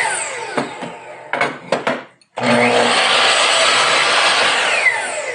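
Electric miter saw cutting a wooden board twice: the blade winds down with a falling whine, a few knocks follow, then the motor starts again with a rising whine about two and a half seconds in, cuts through, and winds down near the end.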